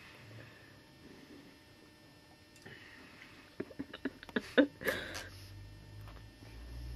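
Someone gulping soda straight from a large plastic bottle: mostly quiet, then a quick run of sharp clicks and gulps about three and a half to five seconds in.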